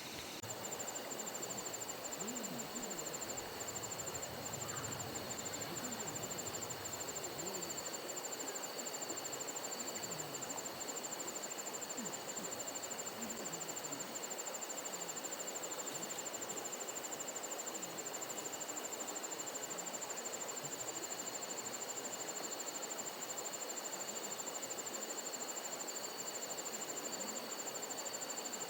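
Night chorus of crickets and other grass insects chirring steadily, a fast high-pitched pulsing trill over a lower, steadier tone.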